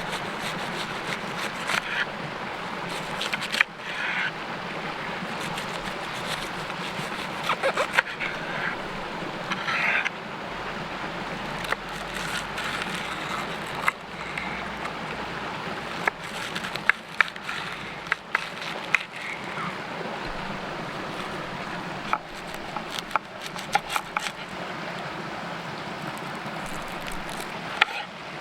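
Cabbage being cooked in cast iron over a campfire: a steady hiss with scattered sharp clicks, taps and scrapes of a cooking utensil.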